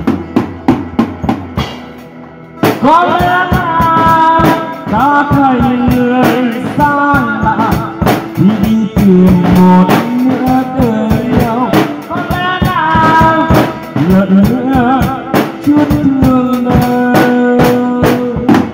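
Live band instrumental break: a drum kit keeps a steady beat while an amplified electric guitar plays a lead melody with bent, wavering held notes, coming in about two and a half seconds in.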